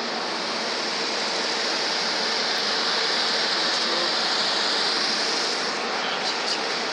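Steady rushing hiss with no pitch, swelling slightly in the middle, with a couple of faint ticks near the end.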